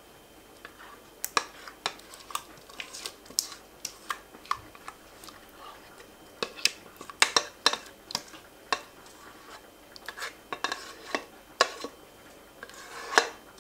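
A spatula scraping thick pudding out of a stainless steel saucepan, with irregular clicks and taps against the pot's rim and sides.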